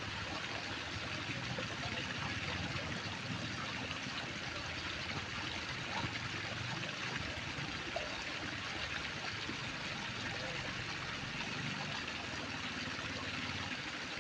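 Steady outdoor background noise: an even hiss with no clear events apart from a faint tick or two.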